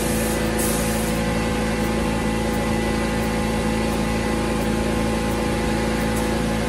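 Air compressor running steadily, with two short bursts of paint-spray hiss in the first second or so.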